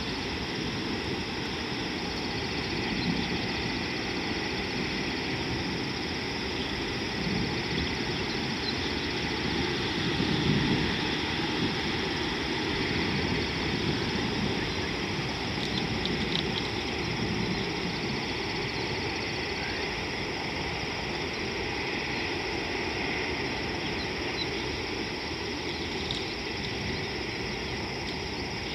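Steady outdoor riverside ambience: a low, even rumble with faint high, fast-repeating chirps coming and going over it.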